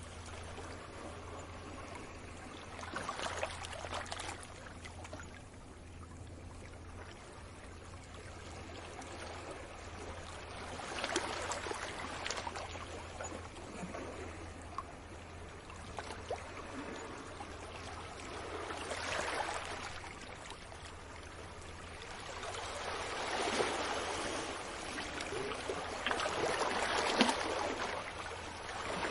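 Small waves washing onto a beach, each wash swelling and fading away about every eight seconds, with a longer, louder stretch of surf near the end. A faint steady low hum lies underneath.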